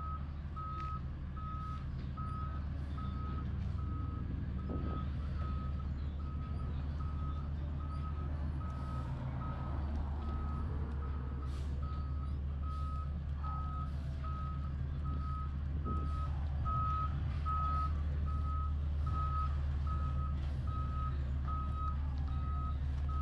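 Garbage truck's backup alarm beeping steadily at one pitch, a little more than one beep a second, as the truck reverses, over a steady low rumble.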